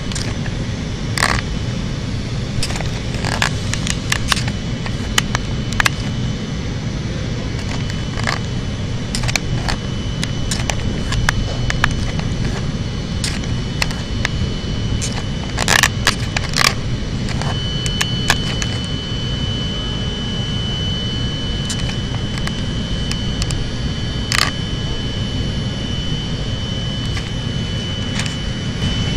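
Chicago Transit Authority 5000-series railcar standing at the platform: a steady low rumble from the train, with scattered short clicks and crackles. A steady high tone starts about 17 seconds in and holds.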